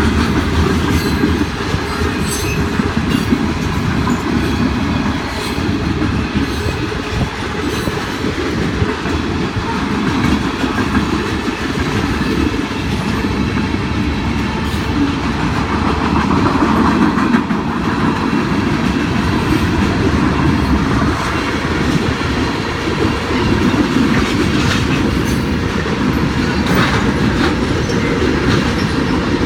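Freight train rolling past, with steady wheel-on-rail noise and a clickety-clack over the rail joints.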